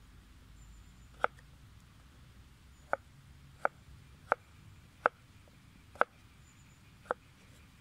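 Chef's knife chopping through a potato onto a wooden cutting board: seven sharp knocks, unevenly spaced, roughly one a second.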